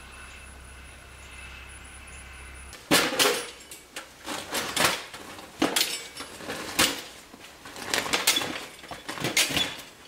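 Irregular clattering knocks and scrapes of things being handled on a metal garden cart, starting suddenly about three seconds in, after a steady low hum.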